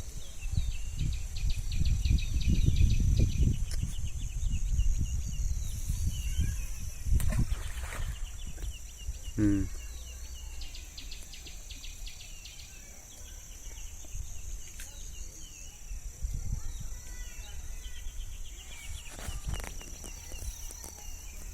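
Outdoor pond-side ambience: a steady high insect drone with quick bird twitters, over an uneven low rumble. A short pitched call stands out about halfway through.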